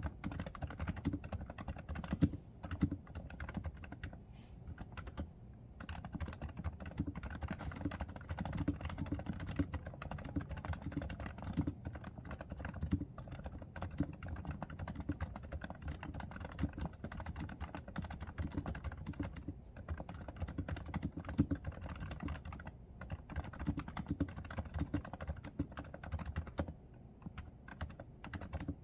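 Continuous typing on a Realforce R2 silenced (low-noise) keyboard with 30 g Topre electrostatic capacitive switches: a dense, uneven run of muted keystrokes with little sharp click. The typing thins out briefly about four to five seconds in and again near the end.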